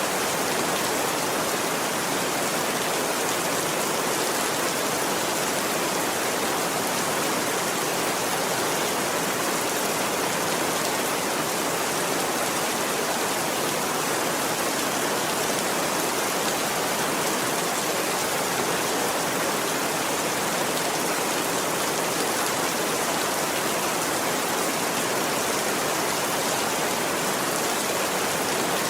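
Steady rain falling, a dense, even hiss with no thunder and no change in level.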